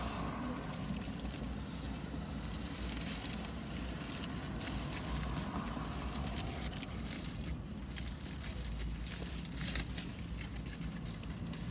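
Foil and paper food wrappers rustling and crinkling now and then as the food is handled, over a steady low hum inside a car.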